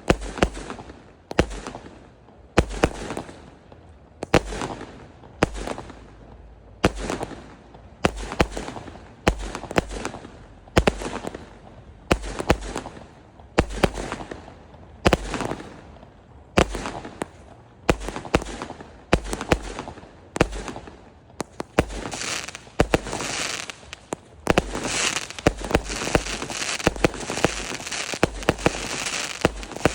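A 0.8-inch, 138-shot fireworks cake firing shot after shot in a steady rhythm, each a sharp bang with a short tail. About two-thirds of the way through, a dense crackle fills in between the shots.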